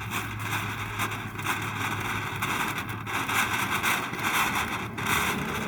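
Fireworks cake firing: a steady crackling hiss with a few faint pops.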